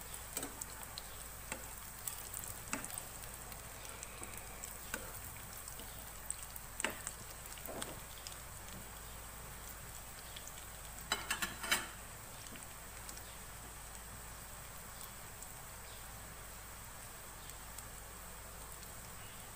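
Shami kababs shallow-frying in oil in a frying pan over a medium flame: a steady sizzle with scattered crackles and pops, and a short cluster of louder crackles about eleven seconds in.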